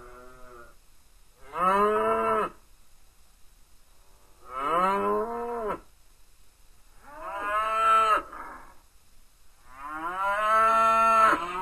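Cattle mooing again and again: a call fading out just after the start, then four more calls about three seconds apart. Each lasts a second or so and rises then falls in pitch.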